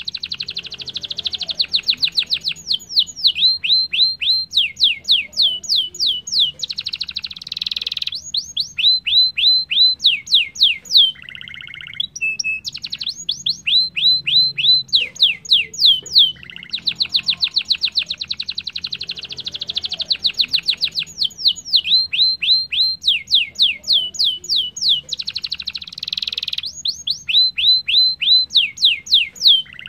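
Domestic canary singing a long song. Fast rolling trills alternate with runs of repeated downward-sweeping notes, about three or four a second, with a couple of brief breaks between phrases.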